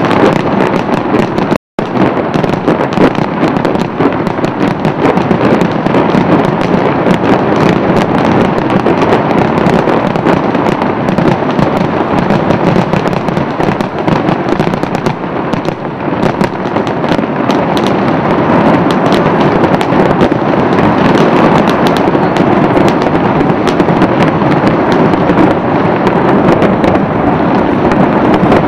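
New Year's fireworks display: a dense, unbroken barrage of bursts and crackling with no pauses. There is a very short dropout about two seconds in.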